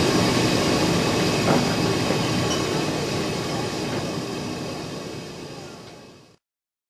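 Steam locomotive running along the track, a steady noisy rumble that fades away over the last few seconds and stops abruptly about six seconds in.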